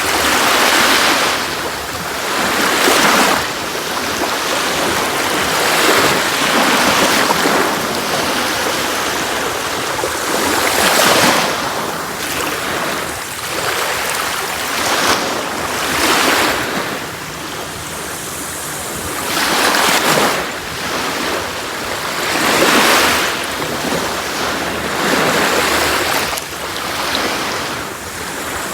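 Sea waves breaking and washing up a shore, one surge after another every few seconds.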